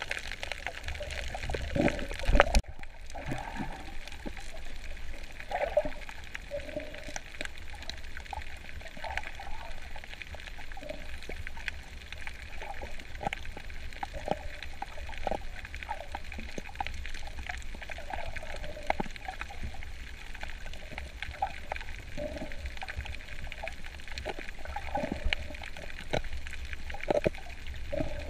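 Water sloshing and gurgling around a snorkeler's camera underwater, with scattered short bubbly blips and one loud bump about two seconds in.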